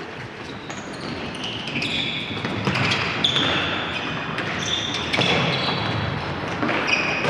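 Futsal play on a wooden gym floor: sneakers squeaking in many short, high-pitched chirps, with a few sharp knocks of the ball being kicked.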